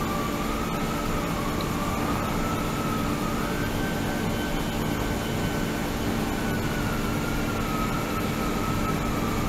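A 72 kHz, 300 W ultrasonic tank running under water: a steady hiss and low hum, with a faint whistle-like tone that wavers slowly up and down in pitch.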